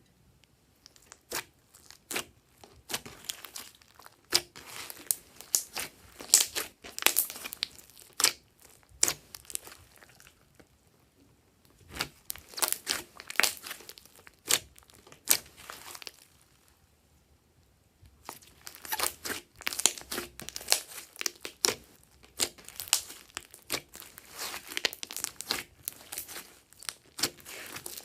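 Slime being squished and stretched by hand, giving runs of sticky crackling and popping clicks, with two short pauses.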